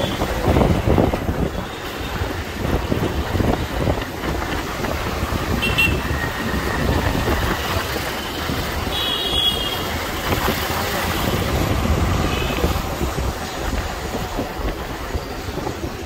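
Road and wind noise from riding on the back of a two-wheeler through city traffic, with the engine under it and wind buffeting the microphone. A few short, high-pitched beeps, typical of vehicle horns, sound about six, nine and twelve seconds in.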